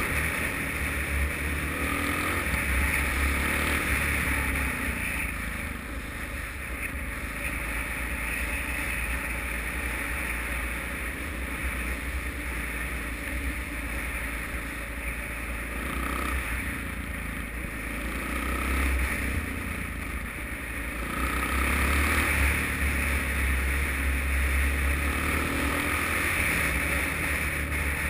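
Wind rushing over a helmet-mounted camera's microphone while riding a Suzuki DR-Z motorcycle, with the bike's single-cylinder engine underneath. It swells and eases as speed changes, louder again near the end.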